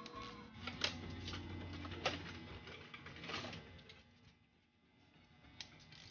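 Hand tools working on a Ford Model A engine's main bearing cap bolts, running them down before torquing: a few sharp metallic clicks and clanks about a second apart over a low hum, then quieter with a last click near the end.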